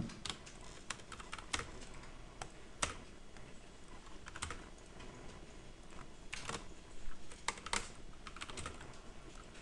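Computer keyboard typing: scattered key clicks in short, irregular bursts as commands and numbers are entered.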